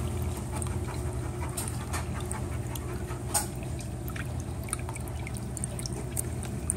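Water trickling and splashing steadily into a plastic tub from a small aquarium pump's overflow, with a steady low hum underneath.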